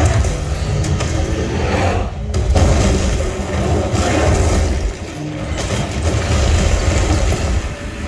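Action-film car-race soundtrack played loud through a Klipsch Reference Premiere 5.2.4 home theater: engines and booms over a heavy, continuous bass rumble from the subwoofers, heard through a phone's microphone in the room.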